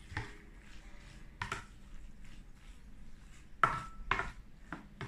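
A utensil knocking, clinking and scraping against a baking pan as a noodle mixture is stirred, in irregular strokes, with one sharper ringing clink about three and a half seconds in.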